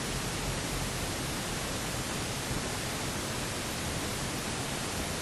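Steady, even hiss of a Cessna 172's engine and propeller running at taxi power, heard from inside the cabin.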